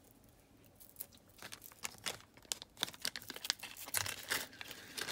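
Small clear plastic bag crinkling and rustling as a strand of faceted stone beads is slipped into it, with many light irregular crackles and clicks that grow busier after about a second.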